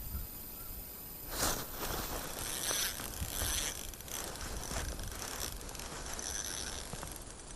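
A fishing reel being cranked, its gears whirring and clicking in a run of uneven turns that eases off near the end.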